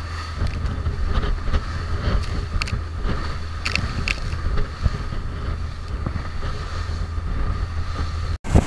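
Strong wind buffeting the microphone on a small boat moving through rough, stormy sea, with water rushing along the hull and a few brief knocks. Near the end it breaks off and comes back louder.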